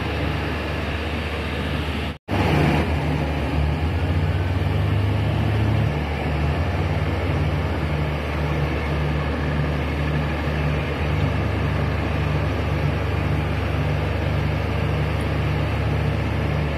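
Heavy diesel engines running steadily: a wheel loader working the heap of empty palm fruit bunches and a loaded dump truck idling close by. The sound cuts out for a moment about two seconds in.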